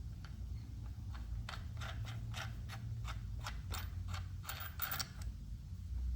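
Ratchet wrench clicking as it snugs the nut on a bicycle's rear brake arm: a run of short light clicks, about three or four a second, starting about a second and a half in and stopping after five seconds, over a low steady hum.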